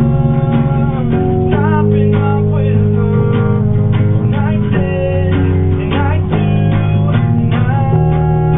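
Guitar music played live: strummed guitar chords over a low bass line, changing chord about every three seconds.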